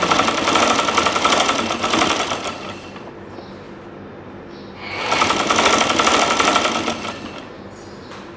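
Sewing machine stitching through fabric in two runs of about two and a half seconds each, with a pause between, at a fast even rhythm. It is a test seam to see whether the thread loops or knots.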